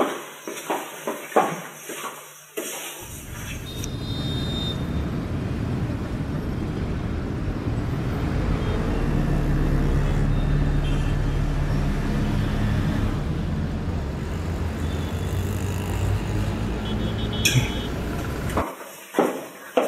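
A few sharp knocks, then a steady road-traffic rumble with a low engine hum. The rumble swells gradually, holds, and cuts off suddenly near the end.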